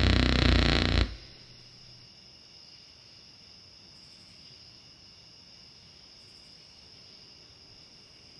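A loud, harsh, distorted electronic burst cuts off abruptly about a second in. It leaves a faint, steady, high-pitched chirring of crickets.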